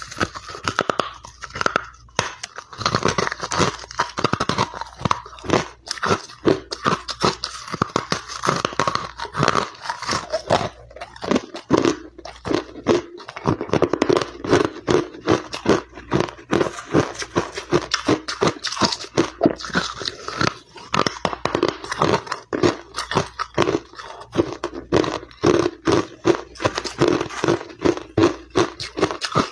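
Hard ice being bitten and chewed, picked up close by clip-on microphones: a rapid, continuous run of sharp crunches and cracks as the ice breaks between the teeth, with a few short pauses.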